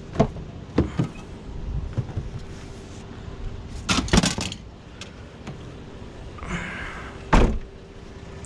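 Scattered knocks and clanks of scrap being handled, with a cluster of louder clatters about four seconds in, a rustle, and one hard knock near the end, over a faint steady hum.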